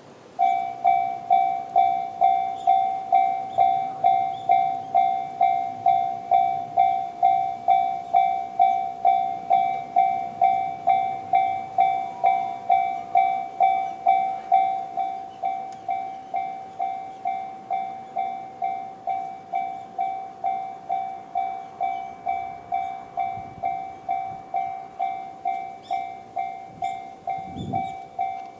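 Japanese railway level crossing alarm sounding the JR standard electronic bell: a pitched ding repeated about twice a second, starting about half a second in. It gets somewhat quieter about halfway through, and a brief low rumble comes near the end.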